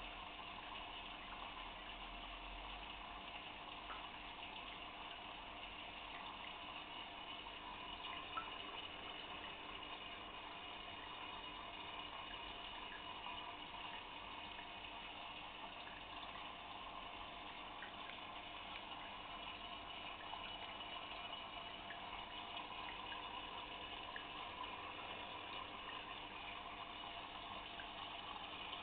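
Fish tank filter running: a steady, faint trickle of water.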